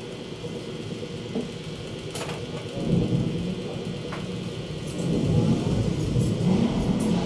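Low engine rumble of traffic, swelling about three seconds in and louder again from about five seconds, over a steady hum, with a couple of faint clicks.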